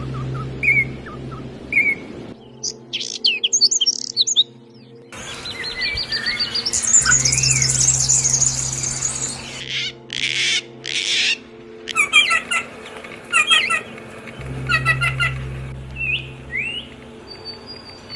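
Songbirds singing and calling in a string of short clips that change abruptly every few seconds: repeated chirps, rapid trills and rising whistles. Background music with a steady low drone runs underneath.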